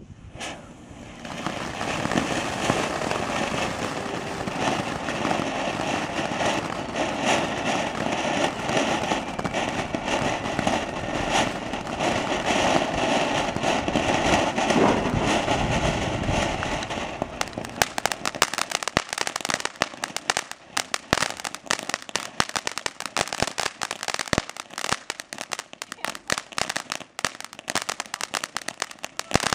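Ground fountain firework spraying sparks with a steady, loud hiss. About seventeen seconds in, the hiss gives way to a rapid crackle of many small pops as the fountain goes on burning.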